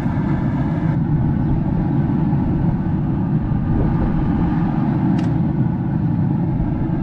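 Steady low rumble of wind buffeting the microphone, with a light click about five seconds in.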